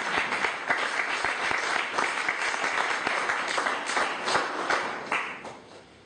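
Audience applause, many people clapping together, tapering off and stopping near the end.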